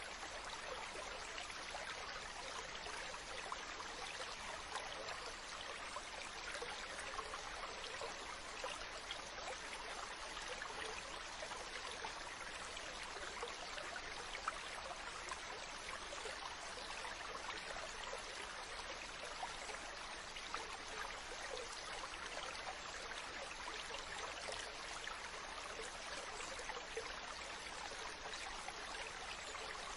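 Stream water running steadily over rocks, an even rushing with small splashes and trickles.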